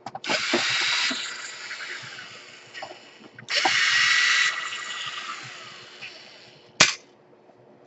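Electric screwdriver removing two laptop screws: two runs of its motor, each loudest at first and then fading. A single sharp click follows near the end.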